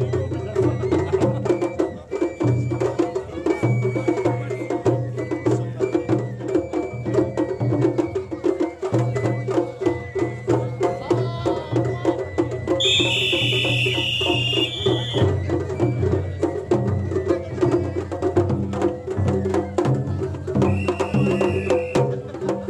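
Japanese festival music (matsuri-bayashi) played from a festival float: drums struck in a quick, steady rhythm over sustained pitched notes. A shrill high note cuts in for about two seconds around the middle.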